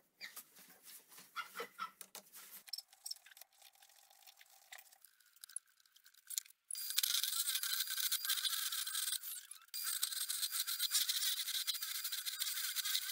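Light clicks and knocks of hands handling a wooden blank, then about seven seconds in a turning tool bites into the spinning blank on a homemade lathe driven by a washing machine's commutator motor: a loud, steady scraping hiss of wood being cut, with a steady whine under it, broken briefly a couple of seconds later.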